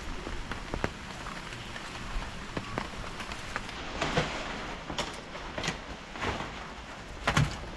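Rain falling on surfaces: a steady patter with scattered sharper drips and taps.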